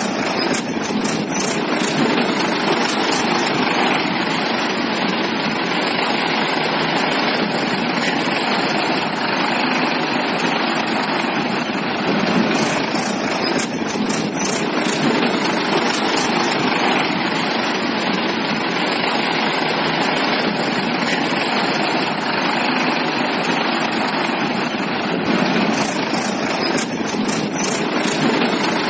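A steady engine drone that runs on evenly without pauses or changes in pitch.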